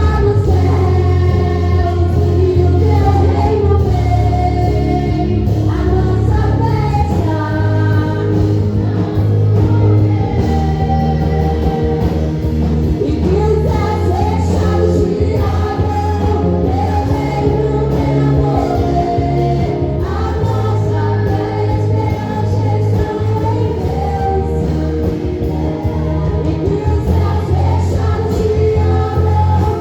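Live gospel worship music: singers over a band with a strong bass, in a large hall.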